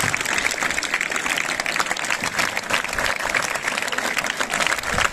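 A large crowd of schoolchildren applauding, many hands clapping in a dense, steady patter that eases off near the end.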